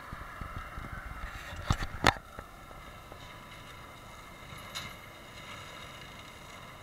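Tractor-mounted forestry mulcher at work, its drum and the tractor's engine running with a steady whine and a low rumble. Two sharp loud cracks come in quick succession about two seconds in, with a fainter one later.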